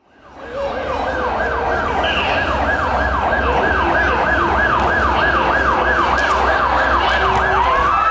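Siren sound effect opening a dance track over a PA. It is a fast yelp of falling sweeps, about three a second, over a steady low bass drone. It fades in quickly at the start, and near the end a slower rising wail begins.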